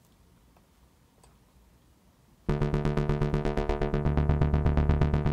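Near quiet for about two and a half seconds, then a looped Future Rave synth bass line from Ableton's Analog synth, run through an Overdrive, starts playing loud. It has a heavy low end and fast pulsing repeated notes.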